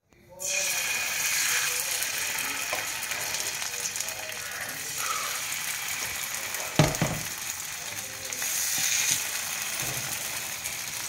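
Marinated seer fish steaks sizzling in oil on a hot dosa tawa as the pieces are laid down one by one, with one loud knock about seven seconds in.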